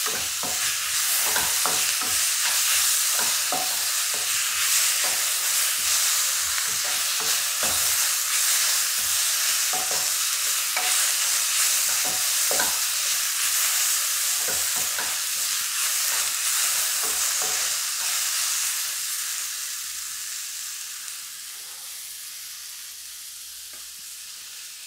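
Chopped tomato and onion-spice masala sizzling in a nonstick kadai while a wooden spatula stirs and scrapes through it, with frequent light knocks of the spatula on the pan. About three-quarters of the way through the stirring stops and the sizzle settles to a quieter hiss as the tomato cooks down.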